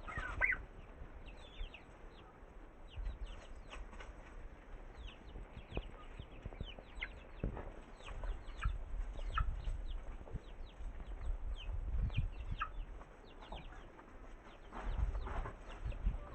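Chickens clucking and calling, with many short, high, falling peeps scattered throughout over a low rumble.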